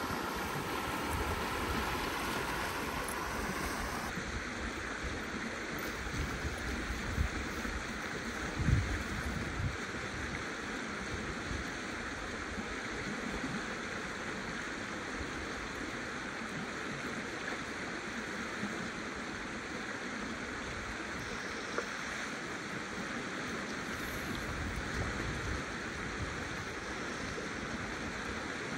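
Steady rush of flowing river water, with a few low thumps now and then, the strongest about nine seconds in.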